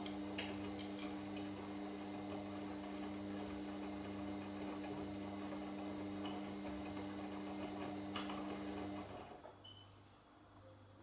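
Washing machine running a wash cycle, its drum motor turning with a steady hum and scattered light ticks and clicks, then stopping about nine seconds in as the drum pauses.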